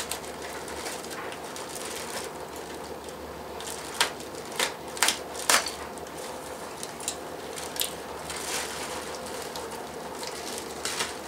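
Plastic parts bag being handled and opened, rustling and crinkling, with a cluster of sharp crackles and clicks about four to five and a half seconds in and a couple more later. A faint steady hum runs underneath.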